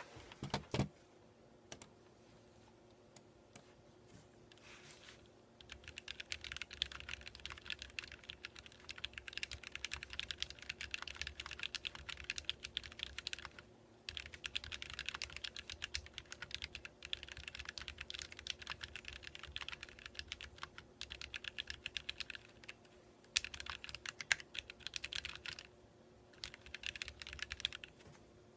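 Typing on an Archon CX mechanical keyboard with Kailh Box Red linear switches: a few single key presses at first, then fast runs of keystrokes with short pauses between them. A low thump just under a second in.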